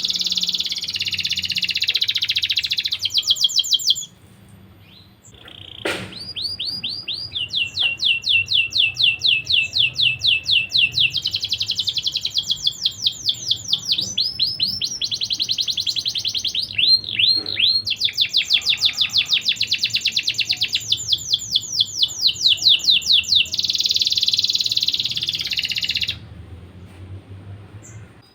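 Domestic canary singing in long rapid trills, runs of fast repeated notes between short pauses, with a sharp click about six seconds in.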